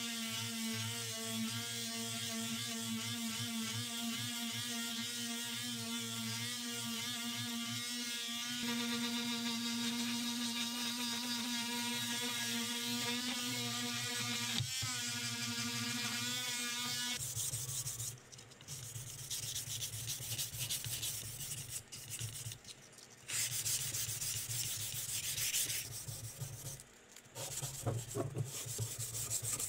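Oscillating multi-tool with a triangular sanding pad running against a plastic keyboard case, a steady whine whose pitch wavers briefly before the tool stops after about 17 seconds. Then sandpaper is rubbed by hand along the plastic case in rasping strokes with short pauses.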